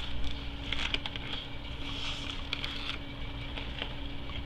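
Close-up chewing of a bite of fish sandwich: soft wet mouth sounds with scattered small clicks and crackles, over a steady low hum.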